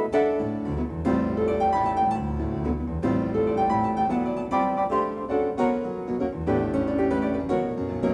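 Background music led by piano, with a quick run of notes over a low bass line.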